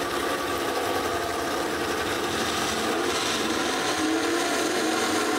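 Drag-racing gasser engines idling steadily at the starting line while the cars stage.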